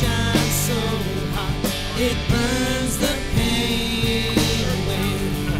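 Background music: a rock song with singing and guitar over a steady beat.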